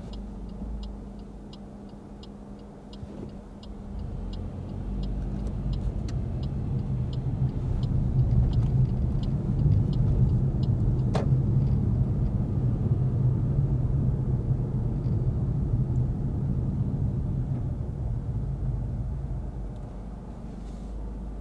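A car's turn-signal relay ticks steadily in the cabin and stops after about seven seconds, as the left turn is completed. The engine and road noise then grow louder as the car speeds up and drives on, with one sharp click about halfway through.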